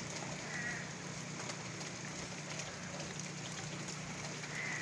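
Steady rain falling, a dense patter of small drop ticks. Two faint short chirps sound, one about half a second in and one near the end.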